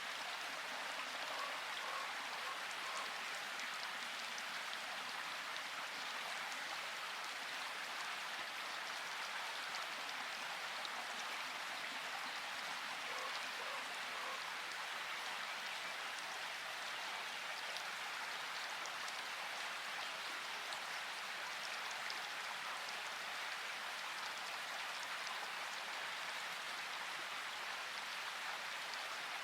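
Steady rain falling, an even hiss of drops with individual drops pattering on a surface.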